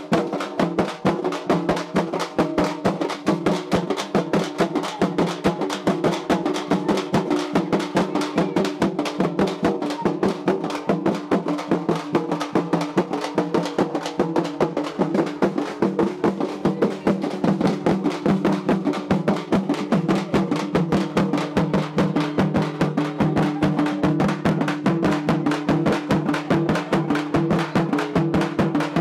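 Festival drums beaten in a rapid, unbroken rhythm, with a steady low tone running beneath the strikes.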